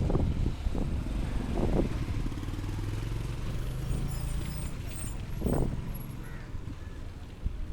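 A motor engine running steadily with a low hum, with a few brief knocks over it and faint high chirps around the middle.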